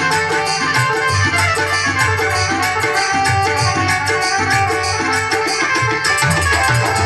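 Instrumental passage of a Marwari bhajan: a steady hand-drum rhythm under sustained melodic notes, with no singing.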